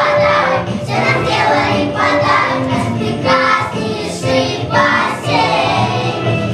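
A group of young children singing a song together in unison.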